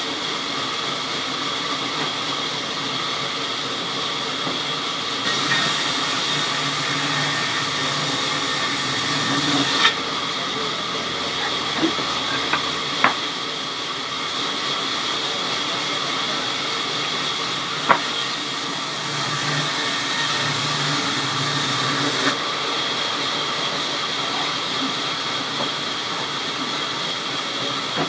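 Sawmill machinery running steadily, with two stretches of louder hissing as wood is cut, and a few sharp knocks.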